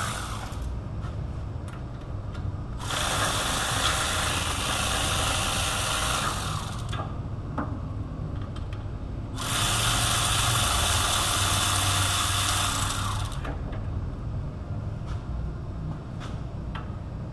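Power tool spinning out the 15 mm hub-assembly bolts from the back of a Hummer H3's steering knuckle, in two runs of about four seconds each with a pause between, over a steady low hum.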